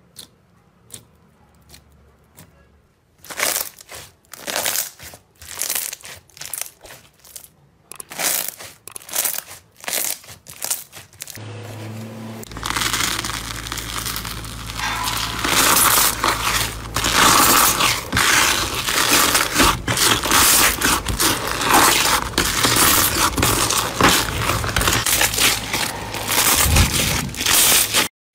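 Glossy black slime pressed and poked with fingertips, giving separate sticky pops and clicks as the fingers press in and pull away. About twelve seconds in, a pink bubble-filled slime is scraped and squeezed by hand, giving dense, continuous crackling as its air bubbles pop.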